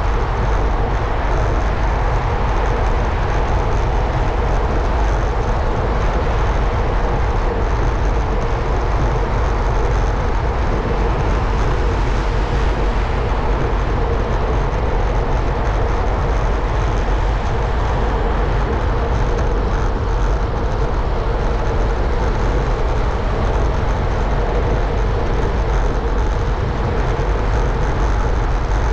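Steady wind rush and road noise from riding a road bike through a long road tunnel, with a constant low rumble and a faint steady hum, echoing off the tunnel walls.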